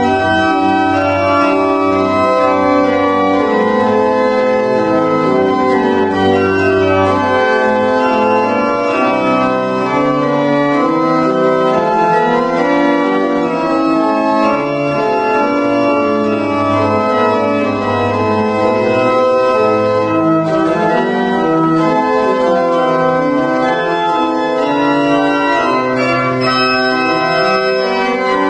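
Organ playing a hymn tune in slow, sustained chords over a moving bass line.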